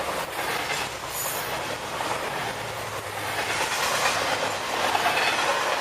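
Norfolk Southern freight train cars rolling past, with a steady clatter of steel wheels on the rails and a little wheel squeal.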